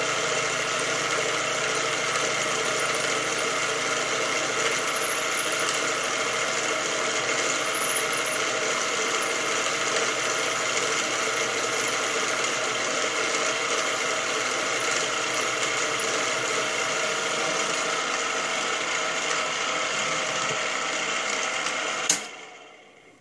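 Small four-speed mill head running steadily with a twist drill turning in its chuck, drilling a pin hole through a steam-engine piston valve. It is switched off with a click about 22 seconds in and winds down quickly.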